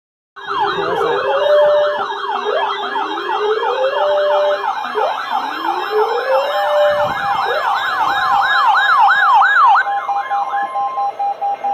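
Several sirens sounding at once: quick up-and-down sweeps overlap slower rising wails. Near the end the sweeps slow and stop, leaving a steady tone.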